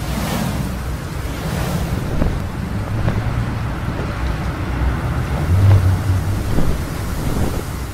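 Rushing wind as a sound effect, a steady noisy whoosh over a low rumble that swells a couple of times.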